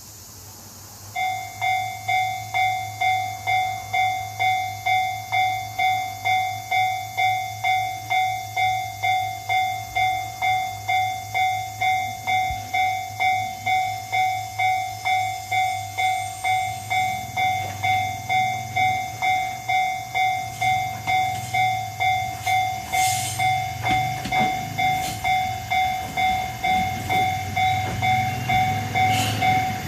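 A level-crossing warning bell starts about a second in and rings steadily at about two dings a second. From about halfway, the low rumble of the approaching TH2100 diesel railcar builds under it, with wheel clicks and brake hiss as the railcar runs in near the end.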